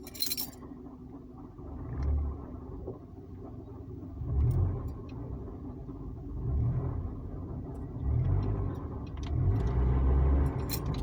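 Car engine and drivetrain heard from inside the cabin while accelerating: a steady hum with a deep low rumble, a "vroom", that swells and fades about five times as the gas is pressed.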